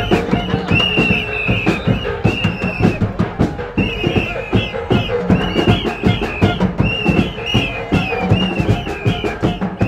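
Street carnival band music: many drums beating a fast, dense rhythm, with a high melody of short repeated notes riding over it.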